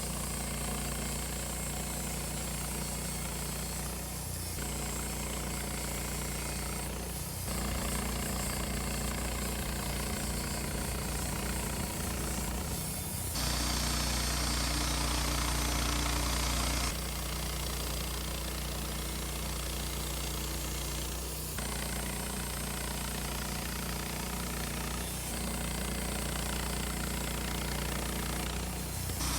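Wood-Mizer LT15 portable band sawmill running steadily, its band blade cutting through a ponderosa pine log. The sound shifts abruptly in level and tone several times.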